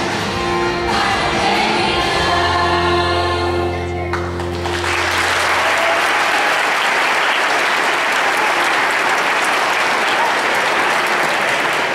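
A group song with children singing ends on a held final chord about four seconds in. Steady applause follows.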